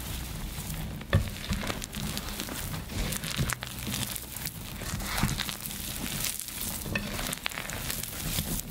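Wet reformed gym chalk being crushed: a steady run of crackling, fizzing crunches and small sharp clicks, with a stronger crunch about a second in.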